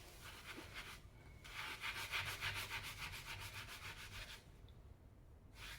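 Rapid back-and-forth scrubbing on the soleplate of a clothes iron, rubbing off melted plastic stuck to it: a short spell of strokes, then a longer, louder run that stops near the end.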